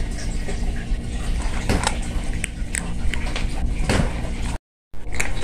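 A cat eating dry kibble from a stainless steel bowl: irregular crunching as it chews, with small clicks of kibble against the metal. The sound cuts out for a moment near the end.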